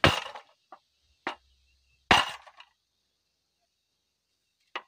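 Bent metal handlebar of a Quick E85 hand tractor being pounded with a heavy stone block to straighten it after a rollover: five sharp knocks, the loudest at the start and about two seconds in, lighter ones between them and one near the end.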